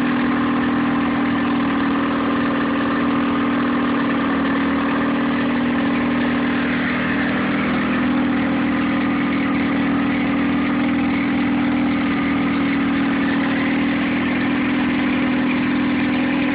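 Nissan 9.8 hp two-stroke outboard motor idling steadily on a cold first start with the choke on, running rough.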